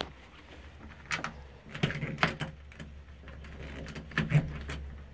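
A few light knocks and thuds, spaced about a second apart, over a low steady hum.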